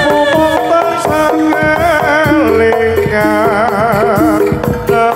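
Live East Javanese jaranan (kuda kepang) ensemble playing: kendang drum strokes keep the beat under held melodic notes, and a melody line wavers with strong vibrato from about two seconds in.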